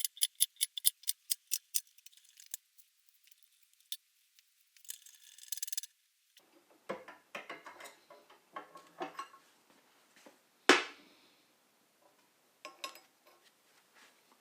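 Metal tools and small parts being handled on a workbench: a quick run of sharp clicks at the start, a short rattle, then scattered clinks and knocks with one sharp metal clank about ten seconds in.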